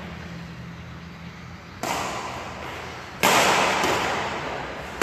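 Badminton rackets striking the shuttlecock in a rally: two sharp hits about a second and a half apart, the second louder, each ringing on in the echo of a large hall.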